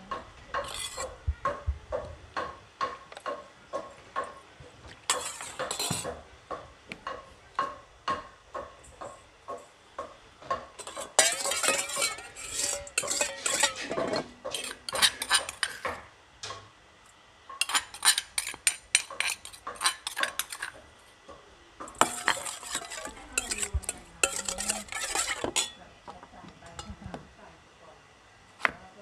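Metal ladle stirring a liquid dressing in a stainless-steel bowl, clinking and scraping against the metal in bursts of rapid strokes lasting a few seconds each. Near the end there are a few knife taps on a wooden chopping board.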